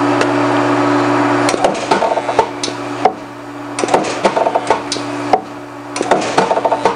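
Pedestal resistance spot welder at work on overlapped sheet steel. A steady hum stops about a second and a half in. Then come a run of sharp metallic clanks and taps as the pedal-actuated copper electrodes close on the panel and the sheet is shifted between welds.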